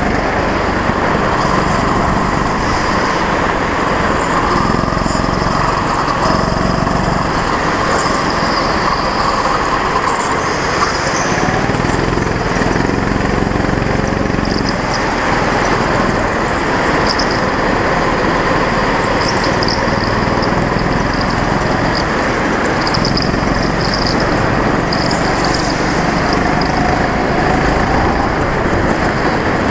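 Go-kart engine running hard, heard from an onboard camera mounted on the kart, under a dense, steady rumble. Its note rises and falls as the kart accelerates and slows through the corners.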